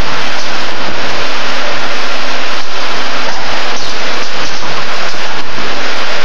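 Loud, steady rushing noise of a steel wire ring forming and welding machine running in its workshop. The noise is so loud that the recording is overloaded.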